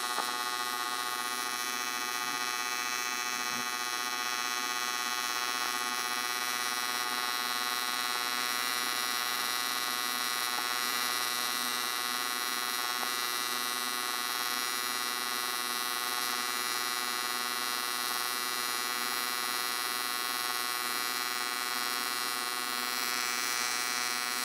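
AC TIG welding arc on thick aluminum buzzing steadily with an even, many-toned hum. On a 3/32 tungsten the arc is stable, keeping the tungsten's point as the puddle wets out.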